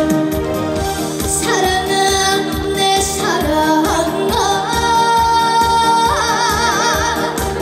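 A female singer singing a Korean song live over a band backing track with a steady beat; she holds a long note near the end with a wide vibrato.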